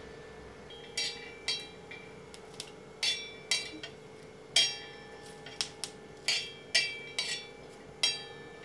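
Flat metal spatula tapping and scraping on an iron tawa as garlic cloves are turned over during roasting. There are about a dozen sharp, ringing metallic taps at irregular intervals over a faint steady hum.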